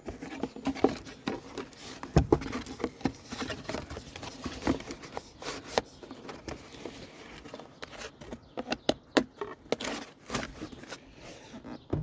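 Packaging being handled and rummaged through: irregular rustling and crinkling with scattered clicks and light knocks.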